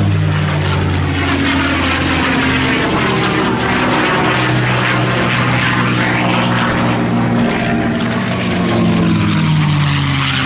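P-51 Mustang's Merlin V-12 engine and propeller running at high power through aerobatic manoeuvres. The engine note shifts slowly in pitch, with a falling sweep near the end as the aircraft passes by.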